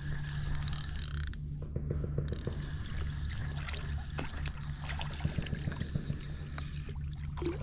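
Spinning reel being cranked to bring a hooked fish in to the bank, with many small irregular clicks over a steady low rumble; the fish splashes at the surface in the shallows during the second half.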